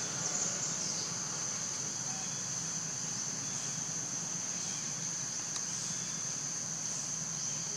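Steady high-pitched drone of insects, over a low steady background hum.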